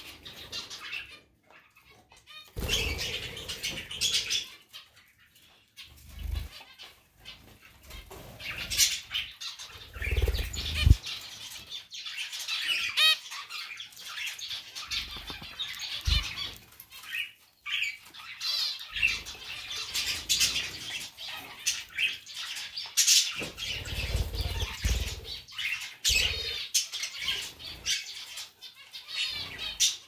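Small pet birds, zebra finches and budgerigars, chirping in many short high calls, with repeated bursts of wing flutter.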